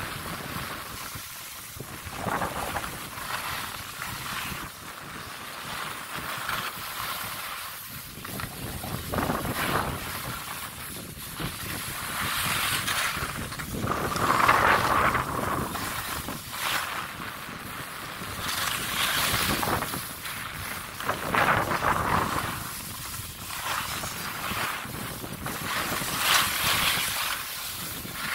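Skis sliding and scraping over packed, groomed snow through a run of turns, the scrape swelling and fading every few seconds, with wind buffeting the microphone.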